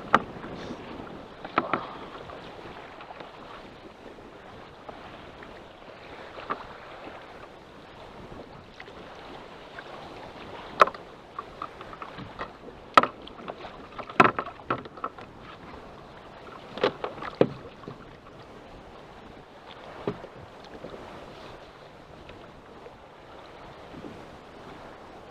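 Steady wind and water noise on open water, broken by a handful of sharp knocks and clicks, loudest in the middle.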